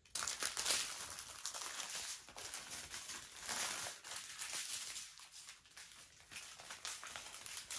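Small plastic bags of diamond-painting drills crinkling and rustling as they are handled and sorted through, in irregular bursts of crackle.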